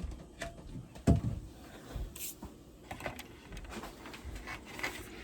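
Scattered light clicks and knocks of dryer parts being handled, with one louder thump about a second in and a short rustle or hiss a little later.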